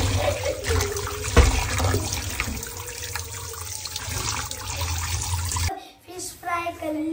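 Tap water running into a steel bowl of raw fish pieces in a sink as they are rinsed by hand, with a knock about a second and a half in. The water cuts off suddenly near the end, and a child's voice follows.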